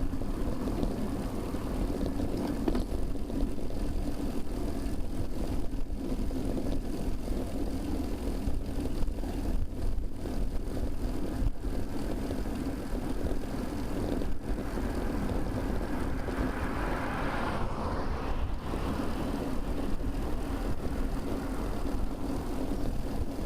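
Steady wind and road rumble on a bicycle-mounted camera while riding in traffic, with a swell of passing-vehicle noise about seventeen seconds in.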